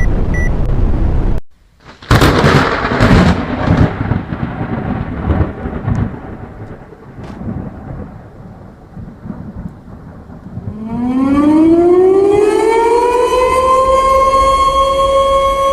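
A steady noise cuts off abruptly, then a loud thunder-like crash rumbles away over several seconds. After that a siren-like tone rises in pitch and levels off into a steady held tone.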